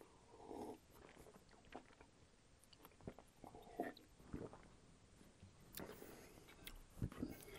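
Faint swallowing and gulping of a drink from a cup, with a few small mouth clicks.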